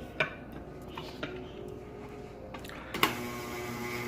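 A few light clinks and knocks of kitchen utensils, then about three seconds in an electric blender switches on with a sharp click and runs with a steady hum.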